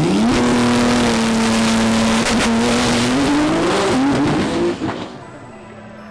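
Nissan GT-R drag car launching at full throttle: the engine jumps to high revs and holds one pitch for about two seconds, then climbs, and fades away about five seconds in as the car pulls away down the strip.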